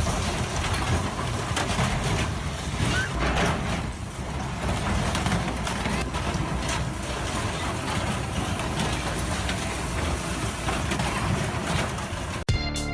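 Heavy industrial shredding machine running under load: a low engine rumble under dense, irregular crunching and cracking. It cuts off suddenly near the end.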